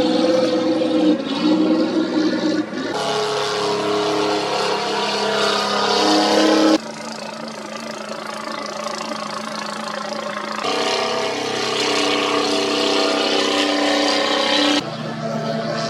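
Racing boats' engines running hard, several steady engine tones together, with a hiss of churned water and spray. The mix changes abruptly about every four seconds as one stretch of sound gives way to the next.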